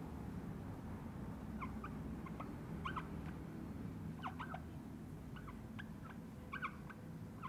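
Dry-erase marker squeaking on a whiteboard in short, scattered strokes as text is written, over a steady low room hum.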